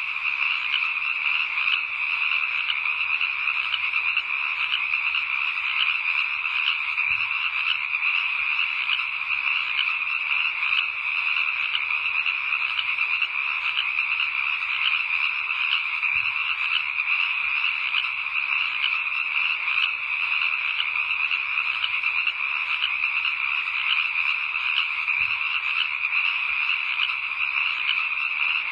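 Dense chorus of frogs croaking steadily, with no pauses.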